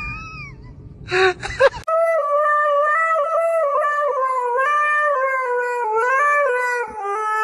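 Siberian husky howling: one long unbroken howl, starting about two seconds in, that steps up and down in pitch like singing. Before it, a short wavering animal cry fades out and two brief cries sound.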